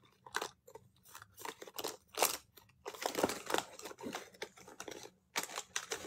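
Irregular rustling and clicking: a run of short, sharp noises with gaps between them.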